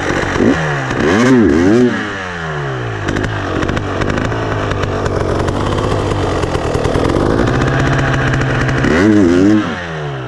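KTM 300 EXC TPI two-stroke single-cylinder engine running while the bike stands still, revved up and down a few times about a second in and again near the end, with steadier running between. It is not revving out: bogging that the rider puts down to the crankcase pressure sensor acting up, probably blocked.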